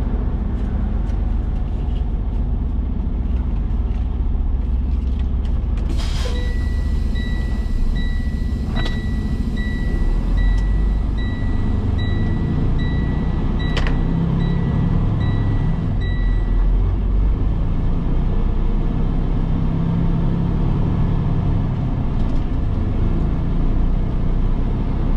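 Semi-truck's engine and road rumble heard from inside the cab while it rolls slowly. About six seconds in, a click is followed by an in-cab chime beeping about twice a second, which stops roughly ten seconds later.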